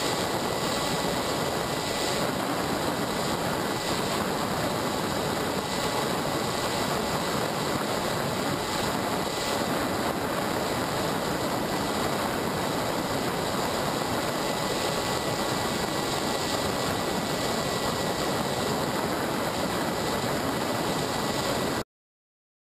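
Steady whine and rushing noise of a small remote-controlled aircraft's electric motors and propellers, picked up by the camera it carries, cutting off suddenly near the end.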